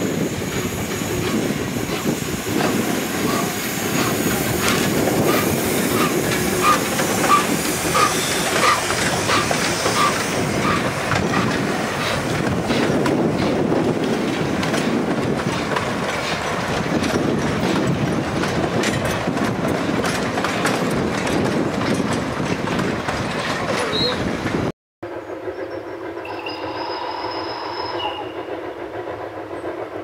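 Narrow-gauge (760 mm) forest-railway steam locomotive working slowly past with a train of empty log bogies: steam hissing from the cylinders over the clatter of the engine and the wagons' wheels, with a regular clicking about two a second over the rail joints. About 25 s in the sound cuts out briefly and comes back quieter and farther off.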